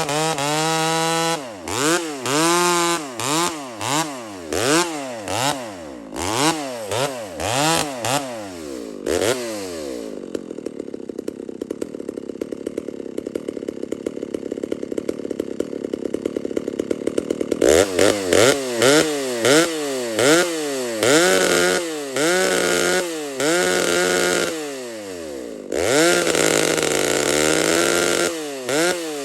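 Two-stroke chainsaw revved in a series of quick throttle blips, then held at full throttle under load for about seven seconds while cutting wood, a test cut with a freshly hand-filed new chain. More throttle blips follow, with a short steadier stretch near the end.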